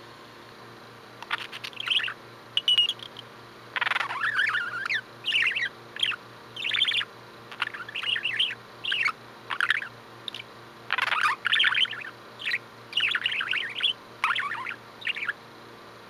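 Budgerigar sleep-talking: a drowsy string of short, irregular chirps and warbles, starting about a second in and going on, with short gaps, until near the end.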